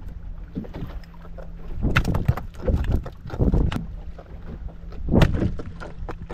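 A fishing boat's engine running with a steady low hum, broken by several loud, irregular swishes and knocks about two, three and a half and five seconds in.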